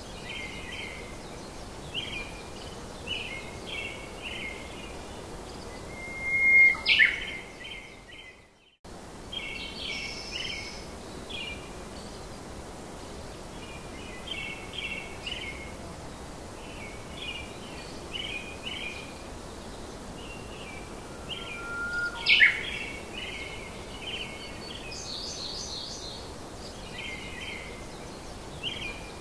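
Birds chirping in short groups of quick repeated notes over a steady hiss, with two louder, sharper calls about a quarter and three quarters of the way through. The sound drops out briefly about a third of the way in.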